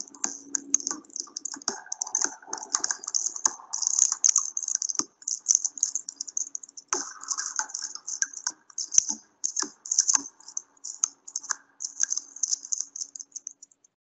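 Rapid, irregular clicking and rattling, like fast typing, over a faint steady hum; it cuts off suddenly just before the end.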